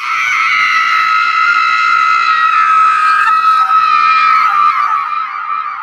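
A horror sound effect: a loud, shrill scream-like shriek held at one high pitch, starting abruptly and easing off near the end.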